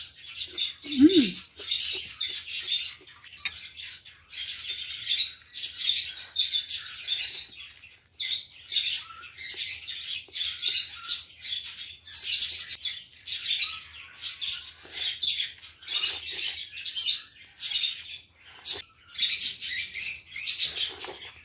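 Close-up eating sounds of curry laksa noodles: many short slurps and chews in quick runs, with brief pauses between them.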